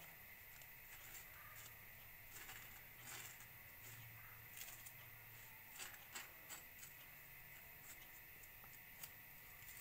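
Near silence with a few faint, scattered light clicks and scrapes of a metal spoon spreading mayonnaise on a slice of bread.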